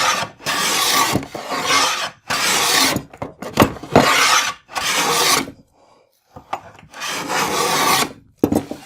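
Repeated strokes of a hand tool shaving wood from the face of a tenon, each a rasping swish under a second long. About six strokes come in quick succession, then there is a short pause and another stroke near the end.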